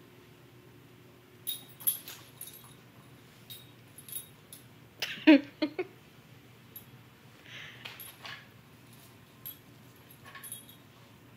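Shetland sheepdog puppy and kitten play-fighting: scattered light metallic jingles and clicks, with two short, loud yips about five seconds in.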